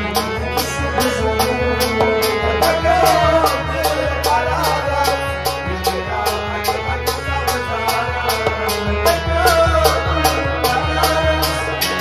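Live folk music: a hand drum beating steadily, about three or four strokes a second, under a melodic accompaniment, with a man's singing voice weaving a wavering melody over it.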